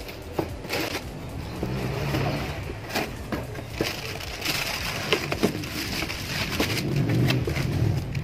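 Plastic wrapping and a cardboard box being handled, crinkling and rustling, with scattered clicks and light knocks as the box is opened and the bagged tank inside is touched.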